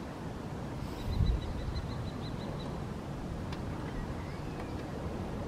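Wind rumbling on the microphone, gusting about a second in. Over it, a small bird gives a quick series of about ten high, evenly spaced chirps.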